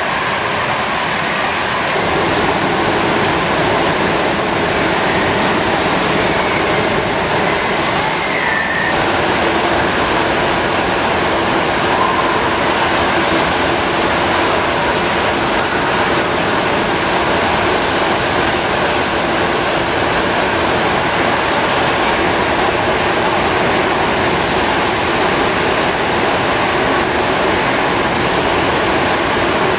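Surf simulator's standing wave: a loud, steady rush of water jetted up the ramp and curling over at the top.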